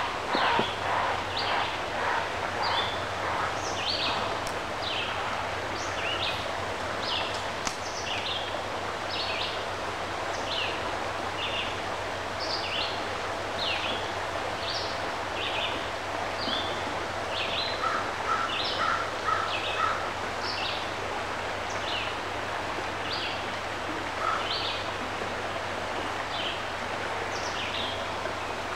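A small bird calling over and over, short high chirps about three every two seconds, over a steady outdoor background hiss.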